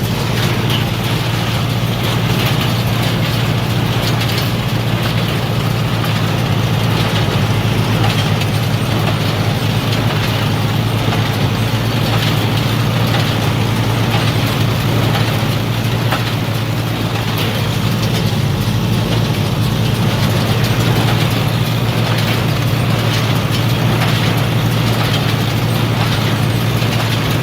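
Oliver 880 tractor and the New Holland 282 baler's air-cooled Wisconsin VG4D V4 engine running steadily together while baling hay, with light mechanical clatter from the baler over the engine drone.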